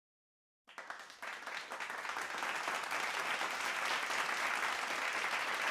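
Audience applauding, starting abruptly about a second in and keeping on steadily.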